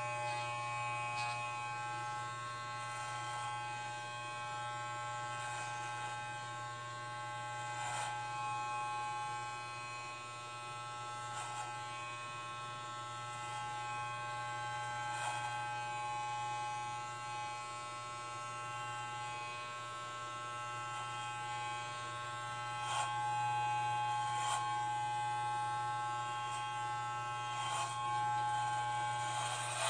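Electric hair clippers buzzing steadily while shaving a head down close to the scalp, with a few brief clicks scattered through.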